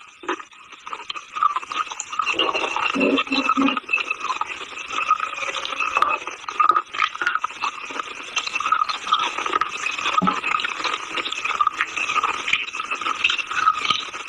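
Close-miked chewing of a hard, chalky earth snack: a steady run of small crisp crunches and grinding, with a few heavier bites a few seconds in.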